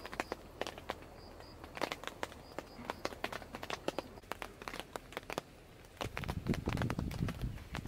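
Irregular crinkling and rustling: a patter of small sharp crackles, growing denser and fuller about six seconds in, as of material being handled or crumpled.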